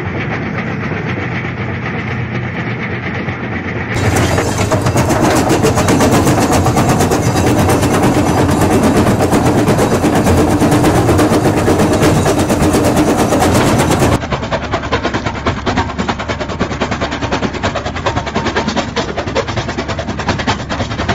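Excavator-mounted jaw crusher bucket running, a dense rapid clatter of concrete and stone being broken in its jaws, over the excavator's engine. It gets louder about four seconds in and changes abruptly again about fourteen seconds in.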